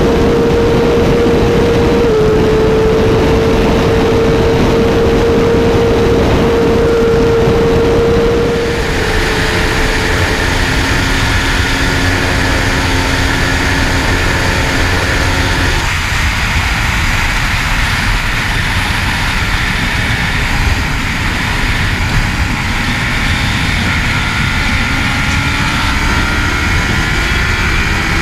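BMW S1000RR HP4's inline-four engine holding a steady high-speed note under heavy wind noise; about nine seconds in the sound switches to a Ducati Panigale 1199's V-twin at speed, which runs steadily and then climbs in pitch as it accelerates near the end.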